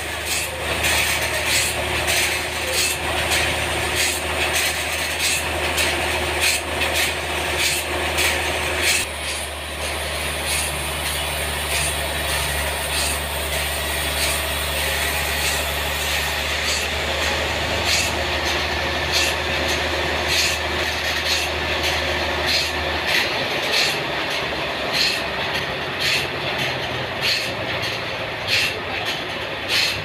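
Sawmill at work on a large mahogany log: a steady low engine drone under a constant rushing noise and a running string of sharp ticks. The low drone drops away about three-quarters of the way through while the rushing and ticking go on.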